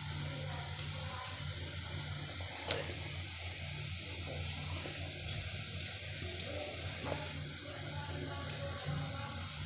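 Sliced onions frying in oil in a steel kadhai, being browned: a steady sizzle with a few sharp pops, the loudest about three seconds in. A low steady hum runs underneath.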